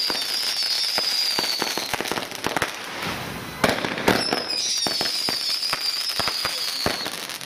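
Fireworks crackling with a rapid stream of sharp pops, and a high-pitched whistle that slowly falls in pitch, heard twice, the second starting a little past halfway.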